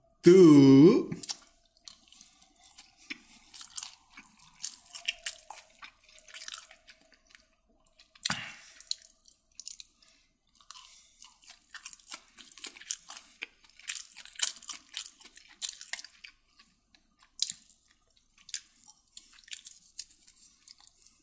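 Someone eating chicken kottu roti: chewing and wet mouth sounds in small, irregular clicks and smacks, with one louder knock about eight seconds in.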